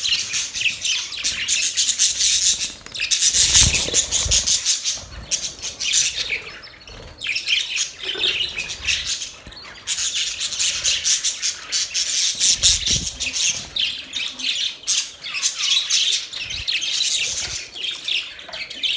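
Budgerigars chattering: a dense, continuous stream of fast chirps and squawks from several birds, easing off briefly midway, with a couple of low thumps.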